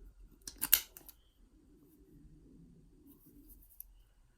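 A padlock being handled: a quick cluster of sharp metallic clicks about half a second in, then faint rubbing and one more small click near the end.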